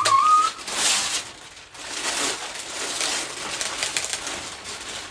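Wrapping paper and gift packaging rustling and tearing in a series of noisy bursts, after a brief voiced sound at the very start.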